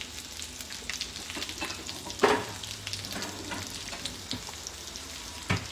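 Sardines frying in a pan, a steady sizzle with fine crackling, and a sharp knock of kitchenware about two seconds in and again near the end.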